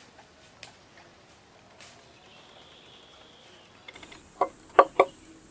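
Light crackle of footsteps on dry bamboo litter, then, about four seconds in, a quick run of sharp cracks as dry bamboo twigs are grabbed and snapped by hand.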